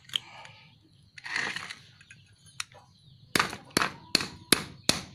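Hammer blows on a metal punch held against the centre of a motorcycle magneto flywheel rotor: about five sharp metal strikes in quick succession in the second half. The blows are knocking out the ground-down rivets to free the rotor's centre boss.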